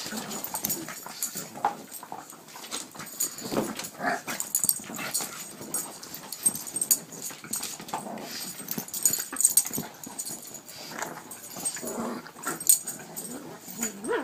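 Several pugs play-fighting on a couch: irregular short dog noises and scuffling, with no steady rhythm.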